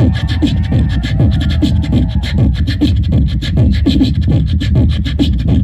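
Live beatboxing into a handheld microphone: a fast beat of percussive mouth clicks and hits over a deep vocal bass, with a held humming tone over it for roughly the first two seconds.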